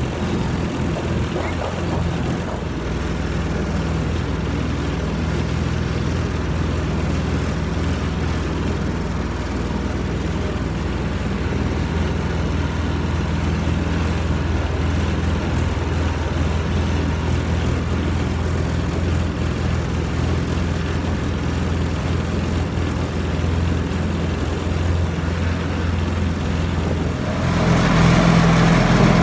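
Small engine of a ride-on miniature tractor train running steadily as it pulls the cars, a constant low drone; near the end it turns louder and brighter.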